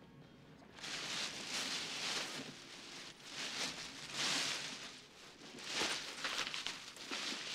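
Rustling of a bag as a hand rummages through the wallets inside it. It starts about a second in and comes in several bursts with short pauses.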